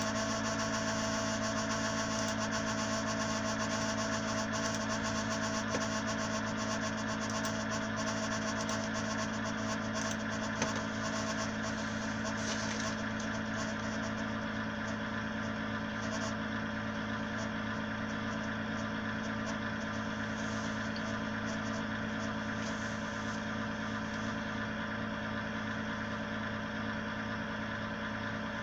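Ig-Max 1607 500W PC power supply running: a steady hum with several fixed tones that do not change pitch.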